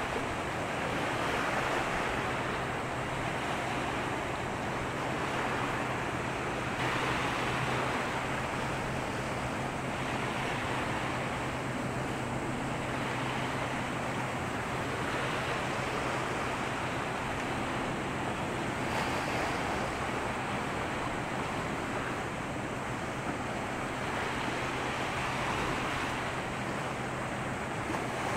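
Waves washing against the shore: a steady rushing wash that swells every five or six seconds, over a constant low hum.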